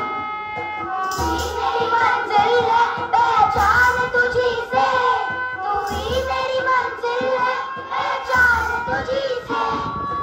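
A children's choir singing a song in unison through microphones, over an instrumental accompaniment with a low drum beat about every two and a half seconds.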